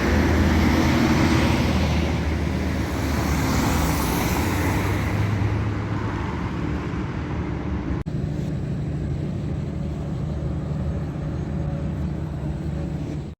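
Motor vehicle traffic: a steady low rumble with a hissing swell about four seconds in that fades a couple of seconds later, like a vehicle passing close.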